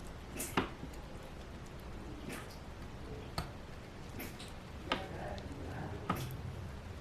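Garlic being mashed in vegetable oil in a small container, the utensil landing in five short squishy knocks at uneven intervals.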